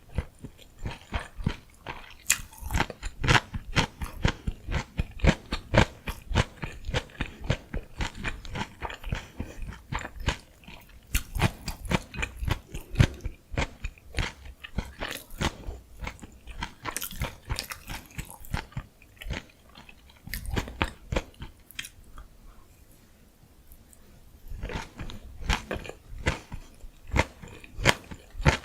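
Close-miked chewing of gimbap (seaweed-wrapped rice rolls): a dense run of wet mouth clicks and crunching bites, easing off for a couple of seconds near the end before picking up again.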